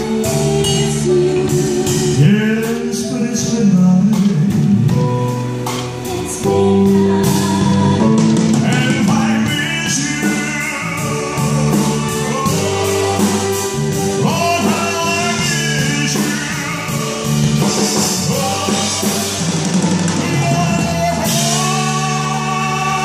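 Live band music with a man singing into a microphone over sustained chords, bass and drums.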